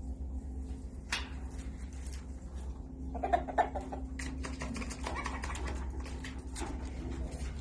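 A buck and doe rabbit moving about together in a breeding cage, with scattered clicks and rustles and a brief pair of louder short sounds about three seconds in, over a steady low hum.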